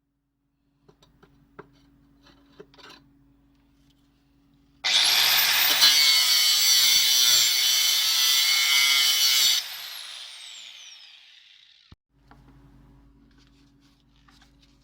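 Angle grinder switched on about five seconds in, its disc spinning up with a rising whine and then running loud and steady for about four and a half seconds. It is then switched off and winds down with a long falling whine that fades out.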